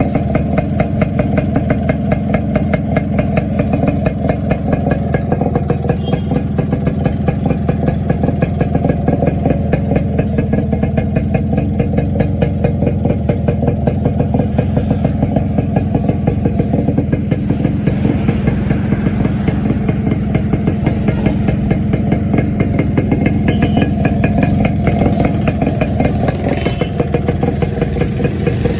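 Freshly repaired Yamaha motorcycle engine running steadily at idle, its exhaust beats fast and even.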